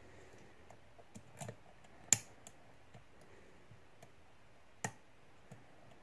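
Faint, irregular small metallic clicks from a pick working the pin stack in the brass core of a Master Lock 410 lockout padlock while it is single-pin picked under light tension. A few are sharper than the rest, the loudest about two seconds in and another near five seconds.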